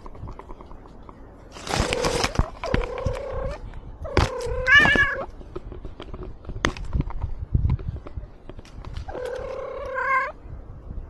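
Domestic cat meowing: four drawn-out meows, the third wavering in pitch at its end. Between them come scattered short knocks and rustling.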